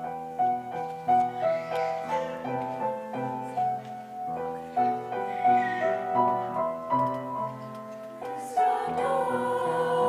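Grand piano playing a gentle introduction in separate, stepping notes, with a mixed choir coming in to sing near the end.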